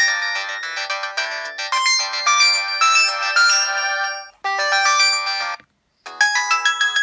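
Samsung 1088 mobile phone ringtones: a synthesized melody of quick short notes that stops about four seconds in. A brief phrase of notes follows, then a moment of silence, and a different ringtone melody starts about six seconds in.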